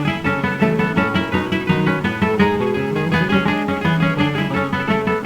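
Guitars playing the instrumental break of an Argentine ranchera in a brisk, even rhythm of plucked notes and strums, from an early record.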